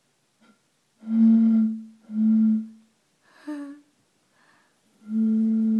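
Steady low hoots from air blown across the mouth of a bottle: two short blows about a second in, then a longer held one near the end. Between them comes a brief sound that rises in pitch.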